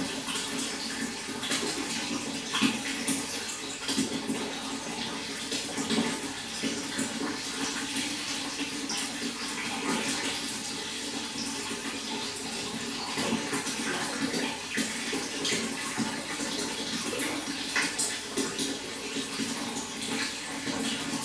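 Running water flowing steadily, with many small irregular splashes through the flow.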